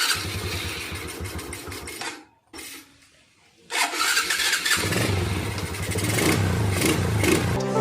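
Honda XRM 125's single-cylinder four-stroke engine being cranked by its starter in short tries with breaks between, then catching about five seconds in and running steadily.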